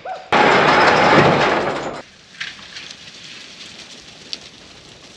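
A loud burst of rushing noise lasts under two seconds and cuts off suddenly. After it, a quieter bed of scattered light clicks and scuffs: a mob of sheep moving over dry dirt.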